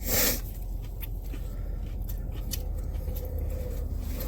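Steady low rumble of a car interior, with a short loud rustle right at the start and a few light clicks and handling noises after it.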